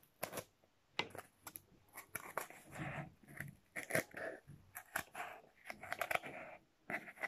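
Knitting yarn being pulled through the notches of a cardboard cutout while the cardboard is handled: faint, irregular scratching, rustling and small clicks.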